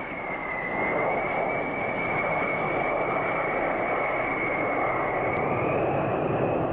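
Light airplane engine running steadily with a high whine over it; the whine dips slightly after about half a second and climbs back near the end.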